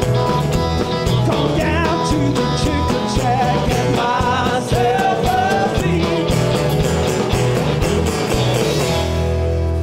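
Live band playing the closing bars of a blues-rock song, with drums, bass and acoustic and electric guitars. The drumming stops about nine seconds in and the band holds the final chord.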